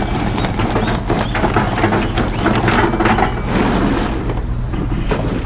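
Lumps of charcoal clattering and rattling as they are dropped into the metal hopper of a Char-Griller 980 gravity-fed charcoal smoker, a dense run of irregular knocks over a steady low hum.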